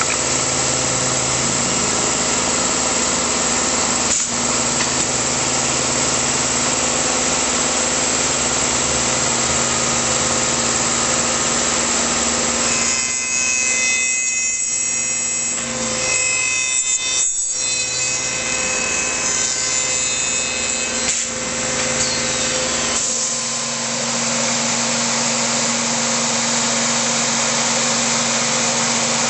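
Woodworking tenoning machine running loudly and steadily, its cutters working wood. The sound shifts partway through, and the low hum drops away about three-quarters of the way in.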